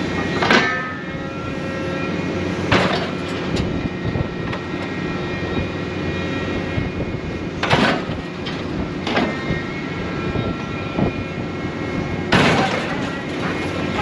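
Scrap-handling machine's engine and hydraulics running steadily while an orange-peel grapple pushes scrap steel down into a trailer, with sharp metal clanks and crashes every few seconds; the loudest crash comes about twelve seconds in.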